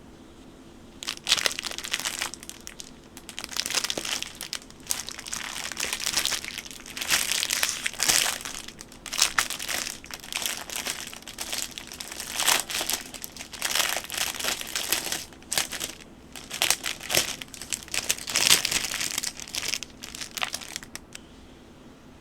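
Packaging wrap crinkling in irregular bursts as a new mechanical keyboard is unpacked. It starts about a second in and stops shortly before the end.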